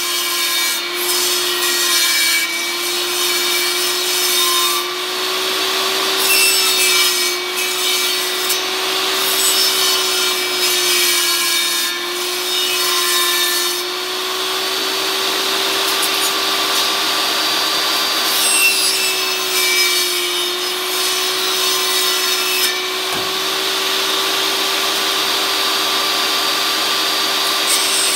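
Table saw running with its blade cutting a 2x4 block as the piece is turned on a circle-cutting jig; a steady motor hum that wavers slightly in pitch, under a rasping cut that swells and eases as the wood is fed in.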